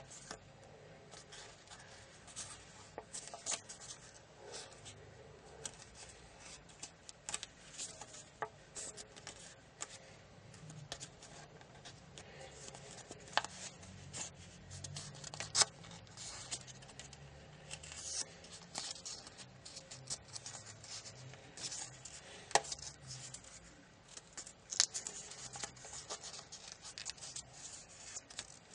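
Origami paper being folded and creased between the fingers: irregular rustling and crinkling with scattered sharp crackles as folds are pressed flat, a few of them louder snaps.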